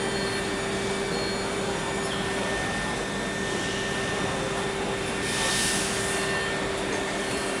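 Spinner U-620 five-axis CNC machining centre milling a metal impeller: steady spindle whine, one high and one low tone held over a hiss. A short burst of hissing comes about five seconds in and lasts about a second.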